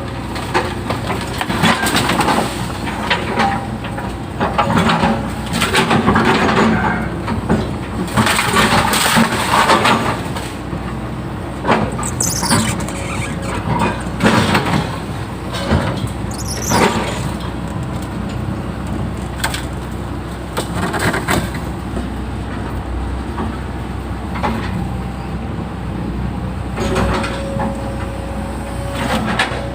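Excavator engine running steadily while it digs, with repeated bursts of scraping and rattling from the bucket and arm. Two short, high, falling squeals about twelve and seventeen seconds in.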